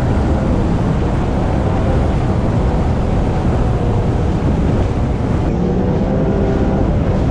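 Jet ski running across open water: a steady engine drone under heavy wind buffeting on the microphone and rushing water.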